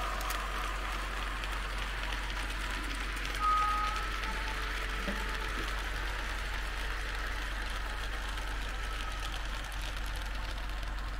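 Märklin H0 model freight train of tank wagons running along the layout's track: a steady clatter of small wheels on the rails, with a brief high tone about three and a half seconds in.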